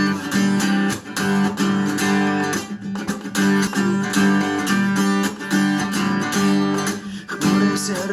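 Acoustic guitar strummed in a steady, even rhythm, chords ringing: the instrumental introduction before the singing comes in.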